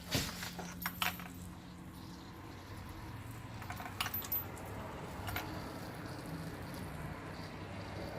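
A few light metallic clicks and clinks of tools or parts being handled, over a steady low hum.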